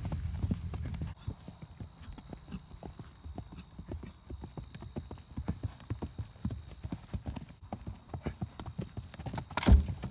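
Hoofbeats of a bay horse cantering on dry, dusty turf, a steady run of quick dull thuds. Near the end there is a single loud thump.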